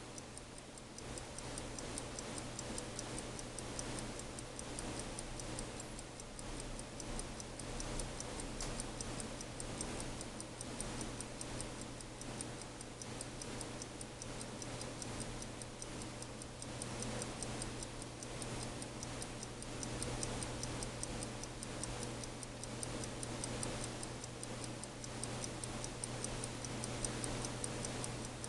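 Waltham 1890 six-size, 15-jewel pocket watch movement ticking steadily and rapidly as it runs.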